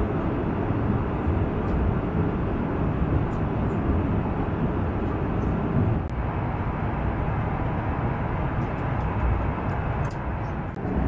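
Steady cabin noise inside a passenger airliner: the jet engines and airflow make a continuous rumbling hiss with no clear tone. It eases slightly about six seconds in.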